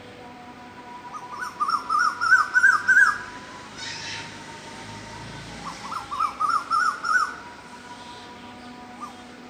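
A cuckoo calling: a quick series of upslurred whistles that climb in pitch, about a second in and again about six seconds in. Fainter high chirps of a smaller bird sound alongside.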